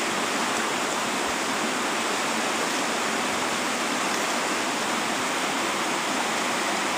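River water rushing steadily over a rocky bed.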